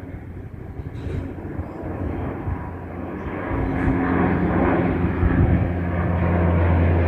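Bombardier Dash 8 turboprop climbing out after takeoff. Its propeller drone holds a steady pitch and grows louder from about three and a half seconds in as the plane comes closer overhead.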